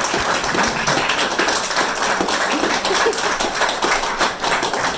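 Small audience applauding: many quick, overlapping claps.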